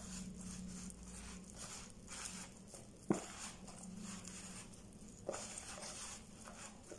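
Faint rustling and scraping of fingers mixing oats and yogurt into a crumbly dough in a thin plastic tub, with two sharp ticks about three and five seconds in.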